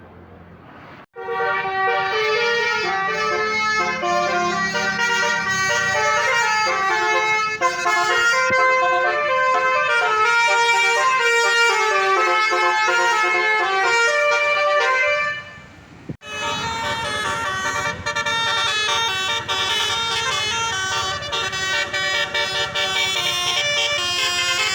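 Indonesian bus 'telolet' horn of the basuri type playing a melody in loud stepped tones, starting about a second in. It pauses briefly about two-thirds of the way through, then plays on.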